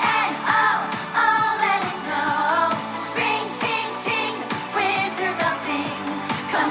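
Pop song with a sung vocal melody over a steady beat.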